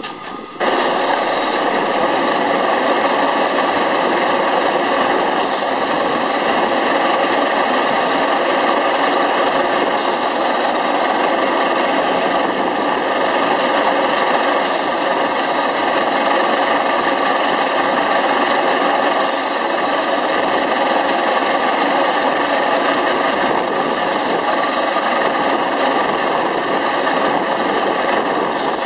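Pence Bull Pup steam traction engine running: its steam shovel swing engine and gas-tractor gearing make a loud, steady clatter and hiss that starts suddenly about half a second in.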